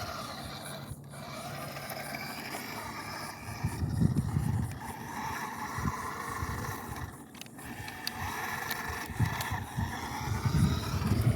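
Toy-grade RC car's small electric motor and gearbox whining as it drives, the pitch shifting with the throttle. Rough rumbling bursts come about four seconds in and again near the end.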